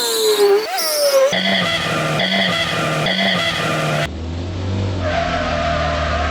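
Car tire screech sound effect in digitally altered versions. It starts with a squeal falling in pitch, then a short chunk repeats three times. About four seconds in it switches to a duller, muffled screech over a deep rumble.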